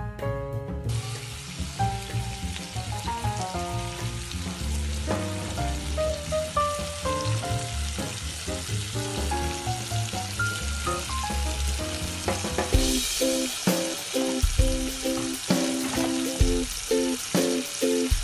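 Lamb ribs frying in oil in a pot, a steady sizzle, under background music with a melody and bass line that picks up a steady beat near the end.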